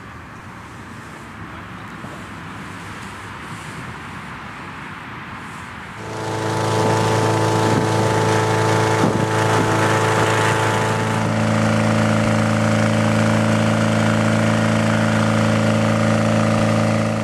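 Engine-driven inflator fan blowing cold air into a hot-air balloon envelope during cold inflation. The engine hum is faint at first, then about six seconds in becomes much louder and steady, and its tone shifts about eleven seconds in.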